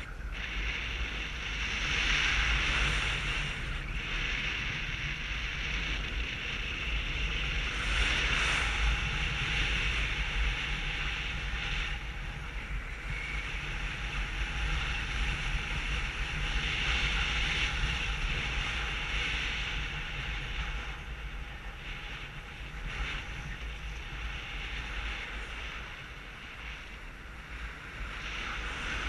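Wind rushing over a GoPro's microphone in paragliding flight: a steady deep rumble with a hiss that rises and falls in gusts every several seconds.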